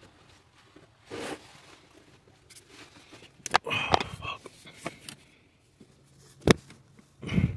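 Scattered sharp plastic clicks, scrapes and rustles of fingers and a small pick prying at a stuck ignition coil and its connector on an engine's valve cover, with two loud snaps, about three and a half and six and a half seconds in.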